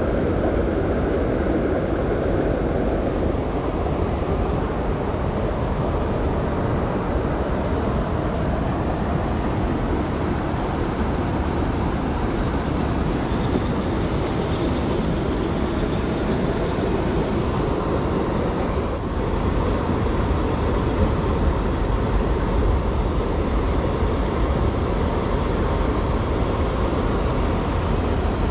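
Small RC rock crawler's electric motor and geared drivetrain running under load as it climbs over rock, a steady rumbling whir. A faint high whine comes in about halfway through.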